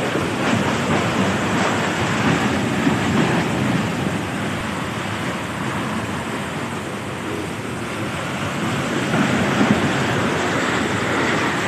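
Typhoon wind and heavy rain: a steady rushing noise that swells and eases a little, with no distinct tones or knocks.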